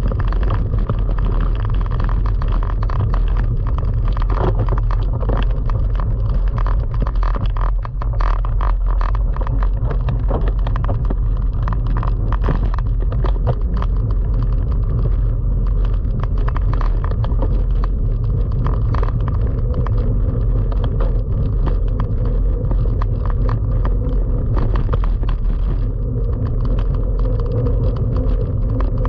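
Steady wind rush on the microphone and tyres rumbling on a dirt track as a cyclo-cross bike is ridden at about 22 km/h, with frequent clicks and rattles from the bike jolting over bumps.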